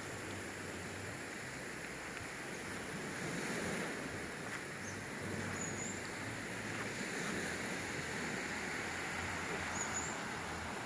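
Steady seaside ambience: wind on the microphone mixed with the soft wash of calm surf, swelling gently now and then. Two brief high chirps stand out, one around halfway and one near the end.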